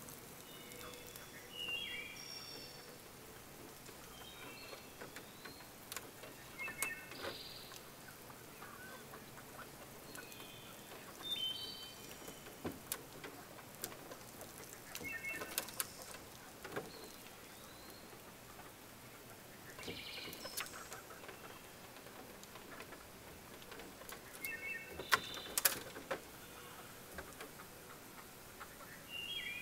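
Hens giving faint, scattered short chirps and peeps, with a few sharp taps and clicks.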